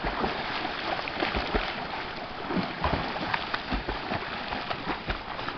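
Belgian Malinois swimming in a lake, water splashing and sloshing steadily with many small spatters.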